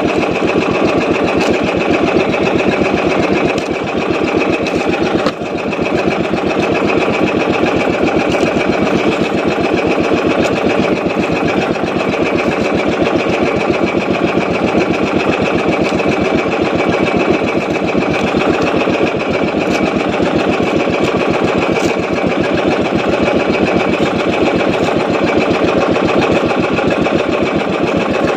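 Small fishing boat's engine running steadily with a rapid, even putter; the level dips briefly about four to five seconds in.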